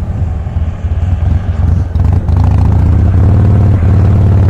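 Harley-Davidson Softail Custom's Twin Cam V-twin engine running under way. For about the first two seconds its sound drops and wavers unevenly, then it runs steadily again.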